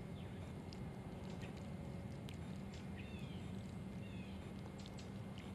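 Faint outdoor ambience: a steady low rumble with a few short, falling bird chirps and faint ticks.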